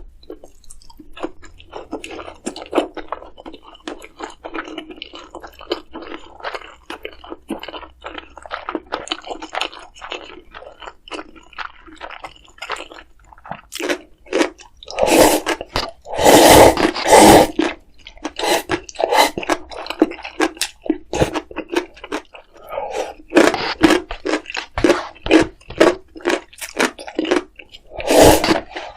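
A person chewing and crunching food in a steady run of short crackly bites, with louder bouts of chewing about halfway through and again near the end.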